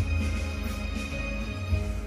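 Background music with held notes over a heavy bass.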